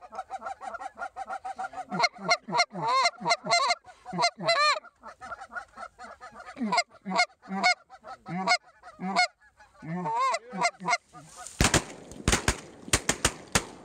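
Rapid, overlapping goose honks and clucks, then near the end a volley of about six shotgun blasts within two seconds.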